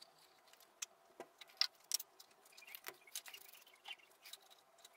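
Faint, scattered small ticks and taps as water is poured from a small plastic watering can into a plastic bottle reservoir sunk in the soil of a planter, with a brief faint hiss about three seconds in.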